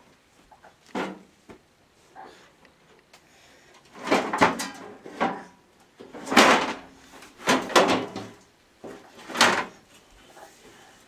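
Metal baking pans clanking and scraping in the storage drawer under an oven as a baby rummages through them. One clatter about a second in, then a run of loud, irregular clatters from about four seconds in.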